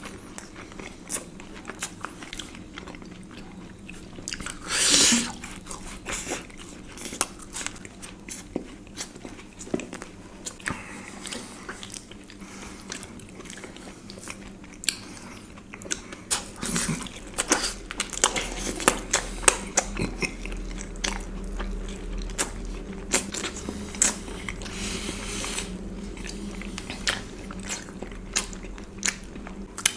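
Close-miked chewing and biting of Indian sweets, with frequent small mouth clicks and crunches. There is one louder burst about five seconds in.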